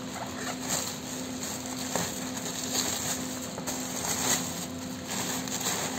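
Plastic shipping bag being handled and pulled open, crinkling and rustling with irregular crackles.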